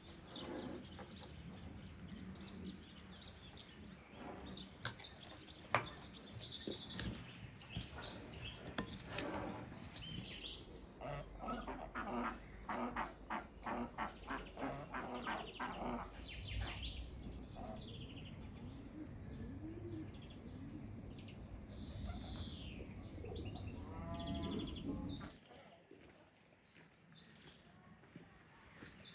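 Birds chirping and calling, with a run of quick repeated calls about halfway through; the sound drops off sharply about three-quarters of the way in.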